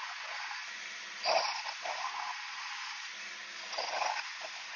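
Myford Super 7 lathe running with a steady hum while its tool cuts the 1018 steel lead screw, with rough scraping bursts of the cut about a second in, near two seconds and near four seconds.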